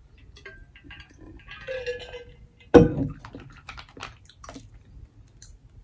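Close-up eating and drinking sounds: swallowing from a drink bottle and small mouth noises, then light clicks of cooked mussel shells being pried apart by hand. A single sudden thump just under three seconds in is the loudest sound.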